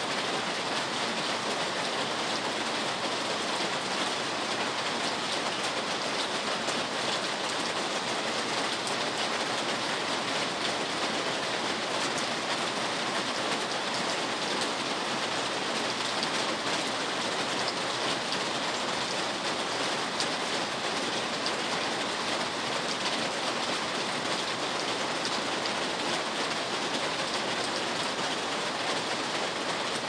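Rain falling steadily, an even hiss with no breaks or separate events.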